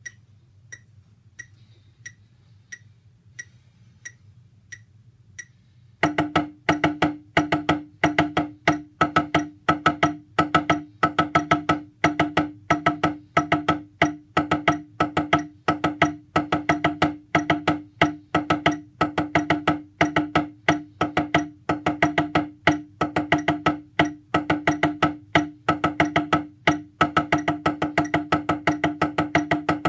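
Drumsticks beating a fast, steady rhythm on a homemade kit of flat wooden pads laid on an ironing board: a rapid run of wooden knocks, each with a ringing tone, starting about six seconds in. Before that come evenly spaced clicks, about one every 0.7 s.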